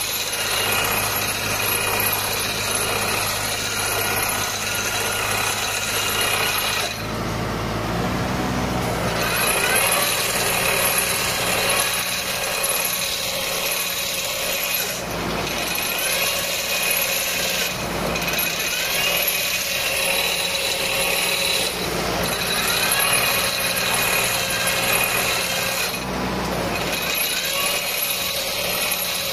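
Hasatsan H 4000 tractor-mounted tree shaker vibrating an olive tree: a steady loud mechanical rattle and hum from the shaker head and machine, with the shaken branches rustling. The sound dips briefly every few seconds.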